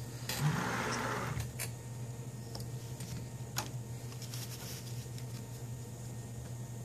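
Faint handling sounds from business cards being slipped under a 3D printer bed as shims: a short rustle about half a second in, then a few light clicks, over a steady low hum.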